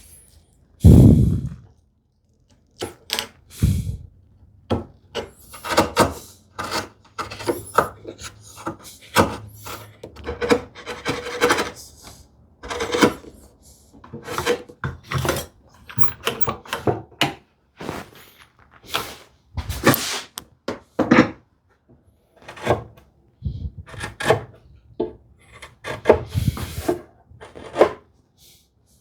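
Hand tools working wood: a run of short, irregular scraping strokes, with a heavy knock about a second in.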